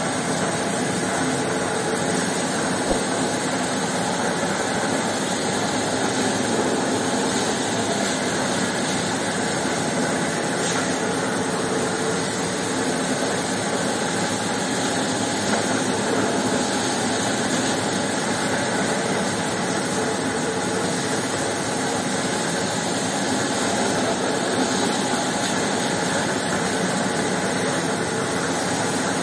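Motorised carpet-washing machine running steadily as its brush scrubs a soaked rug, with water spraying from a hose onto the carpet.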